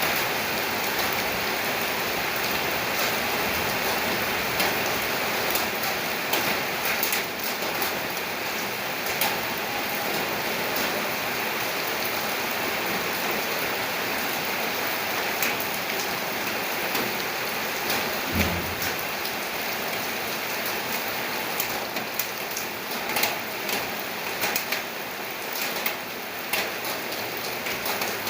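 Steady rain falling on hard surfaces, a constant hiss with scattered sharp drip ticks. About eighteen seconds in, a brief low thud sounds under the rain.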